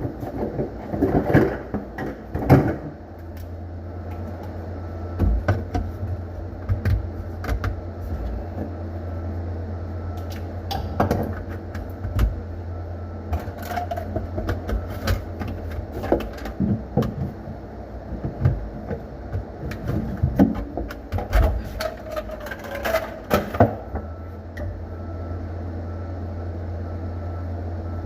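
A steady low hum sets in about three seconds in, under scattered knocks, clicks and clatter of handling work.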